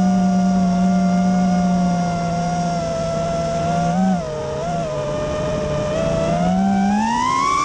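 Diatone R568 FPV quadcopter's brushless motors and propellers whining, recorded on board. The pitch holds steady, dips briefly twice a little past halfway, then climbs over the last second or so as the throttle is pushed up.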